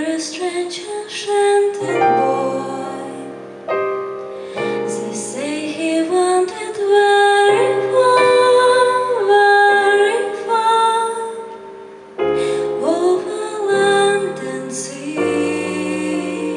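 A woman singing a slow song into a microphone over instrumental accompaniment, her voice gliding up into held notes.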